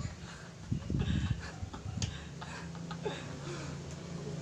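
A man whispering and laughing under his breath, soft and breathy with no full voice, over a faint steady low hum.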